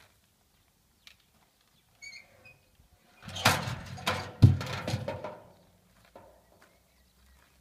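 Crutches dropped into a plastic wheelie bin: a clattering run of knocks and rattles lasting about two seconds, with one heavy thump in the middle. A few faint steps on gravel come before it.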